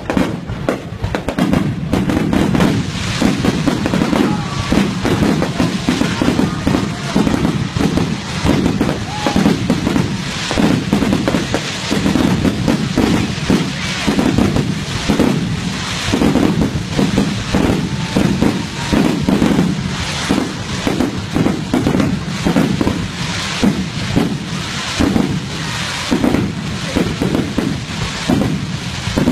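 Aerial fireworks bursting overhead in a rapid, almost continuous string of bangs and crackles.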